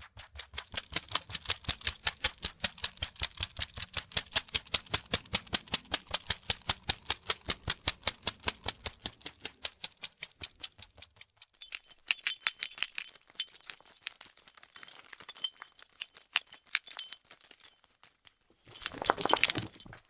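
A dog scratching itself: a rapid, even run of scratch strokes. About twelve seconds in it gives way to irregular scratching with a metallic jingle, ending in a short loud flurry of scratches near the end.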